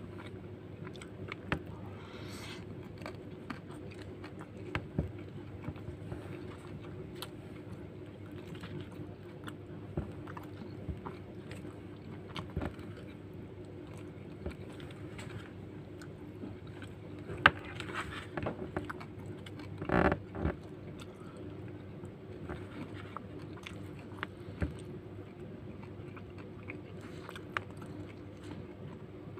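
Close-up eating sounds: a man chewing and biting mouthfuls of nasi lemak, with short clicks and scrapes of a plastic spoon scooping rice off its paper wrapping. A steady low hum runs underneath, and there is one louder half-second burst about twenty seconds in.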